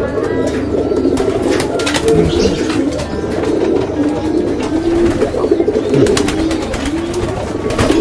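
A flock of domestic pigeons cooing: many overlapping coos, each a short rise and fall in pitch, with scattered sharp clicks throughout.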